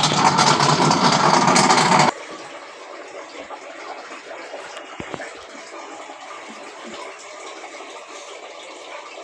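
Washing machine water noise: a loud rush of water for about two seconds that cuts off suddenly, followed by a quieter, steady water noise.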